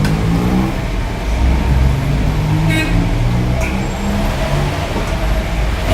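Road traffic: vehicle engines running in a steady low rumble, with a brief high tone a little under three seconds in.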